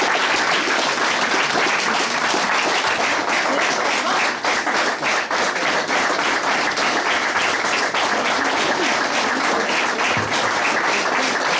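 Audience applauding steadily: a continuous wash of many hands clapping.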